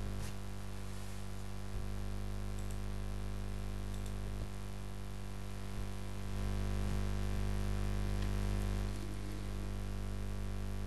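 Steady electrical hum with hiss from an open microphone, a little louder for a few seconds past the middle, with a couple of faint clicks.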